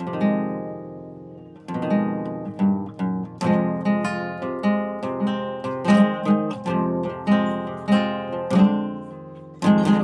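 A plucked string instrument, like an acoustic guitar, playing. A chord rings out at the start and dies away, then from about two seconds in a steady run of picked notes and strums follows.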